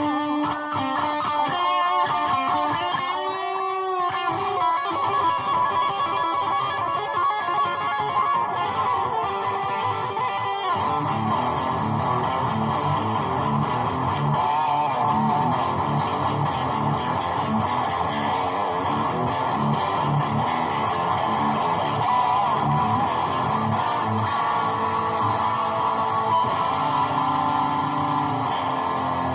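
Electric guitar music playing through a repaired Line 6 guitar amp fitted with a new Celestion 8-inch speaker. The amp is working. Bending, sliding notes for about the first ten seconds, then a steady rhythmic part with deeper notes underneath.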